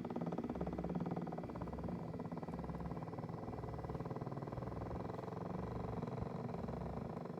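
Doctor Air 3D massage seat running, its massage mechanism giving a steady, fast buzzing rattle with a low throb that pulses on and off. This is the abnormal noise (異音) the seat makes.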